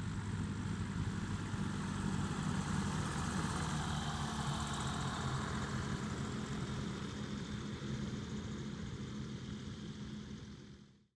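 Small propeller aircraft engine running steadily at low power, as a light aircraft taxis on a grass field. It is loudest in the first few seconds and eases off gradually toward the end.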